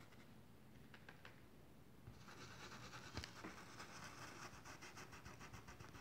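Faint scratching of a paintbrush scrubbing black fabric paint into denim, with the strokes coming thicker and quicker from about two seconds in.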